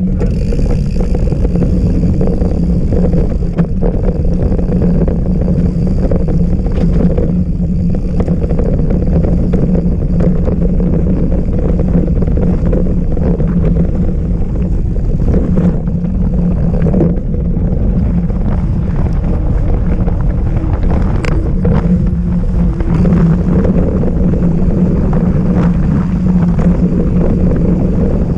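Steady rumble of riding noise and wind on a GoPro mounted on a moving mountain bike, with frequent short knocks and rattles as the bike runs over rough trail.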